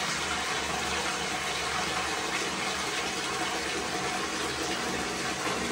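Water from a wall tap pouring steadily into a plastic basin already partly filled, splashing into the water as the basin fills.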